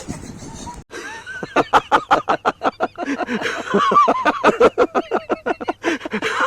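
Hearty laughter: a fast run of short 'ha-ha' pulses that starts about a second in and grows louder and keeps going.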